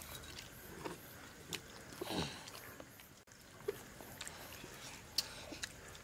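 People eating a meal: soft chewing and mouth sounds with scattered small clicks and ticks, and a short sound falling in pitch about two seconds in.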